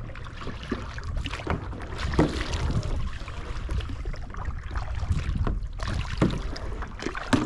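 Kayak paddles dipping and splashing through the water in irregular strokes, over a steady low rumble of wind on the microphone.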